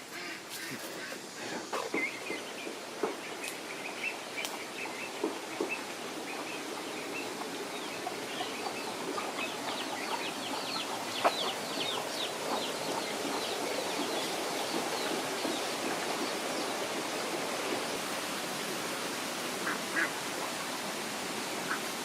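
Poultry, mainly ducks, calling in short scattered calls, with a fast run of calls in the middle. Under them runs a steady rushing noise that grows louder over the first half.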